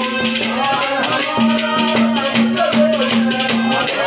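Instrumental interlude of Haryanvi ragni folk music: a harmonium plays a melody over a steady percussion beat with a rattling, jingling part.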